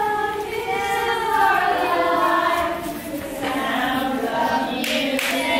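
A group of children's voices sounding together, several held and sliding notes overlapping like a choir.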